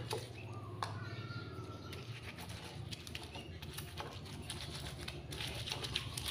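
Stone pestle crushing and grinding fresh red chilies in a stone mortar: soft, irregular knocks and scrapes of stone on stone, over a steady low hum.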